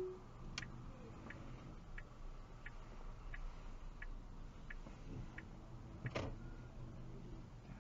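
Car turn-signal indicator ticking evenly inside the cabin, about three ticks every two seconds, over a low, steady hum, with one louder click about six seconds in.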